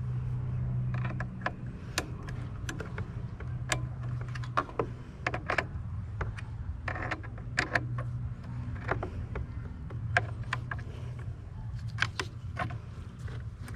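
Irregular sharp clicks and taps of hand tools and metal and plastic parts being handled in a car's engine bay while fitting intake parts, over a steady low hum.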